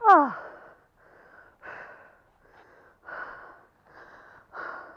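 A person out of breath after a steep climb. It opens with a short voiced sigh that falls in pitch, the loudest moment, followed by heavy breaths in and out, about one a second.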